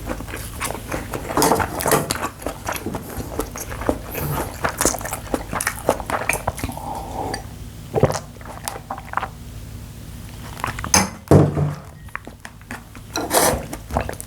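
Close-miked eating of bibimbap: wet chewing and mouth sounds, with a metal spoon clinking and knocking against the bowl a few times.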